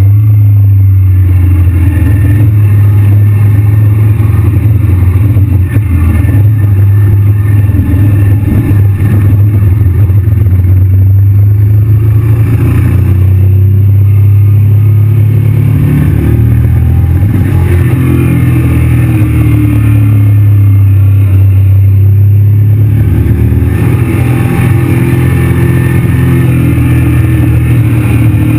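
Motorcycle engine running steadily at road speed, heard from the rider's position; the engine note dips and rises a little about halfway through.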